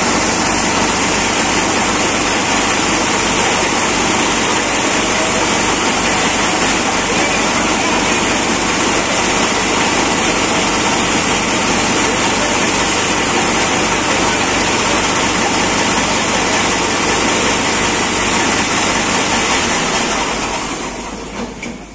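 Tractor-PTO-driven chaff cutter running at speed: a loud, steady rushing of its spinning cutter wheel and blower over the tractor engine's low hum. It falls away near the end.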